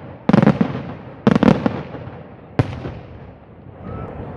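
Daytime fireworks display: aerial shells bursting overhead, three loud bangs about a second apart, each a cluster of quick cracks, the last one short and sharp, followed by a fading rumble.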